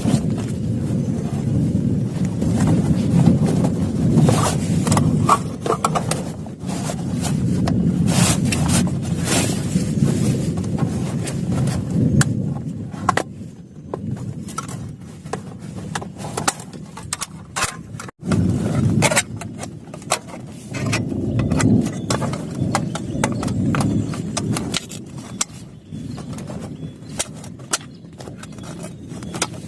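Heavy rain drumming on a plastic tarp, with many sharp drop impacts over a low rumble that swells and fades every few seconds.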